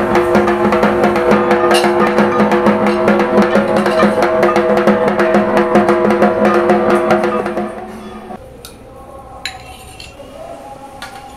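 Fast, dense drumming in the style of Durga Puja dhak, with a steady held tone sounding over it. It fades down about seven and a half seconds in, leaving a quieter stretch with a few sharp clicks.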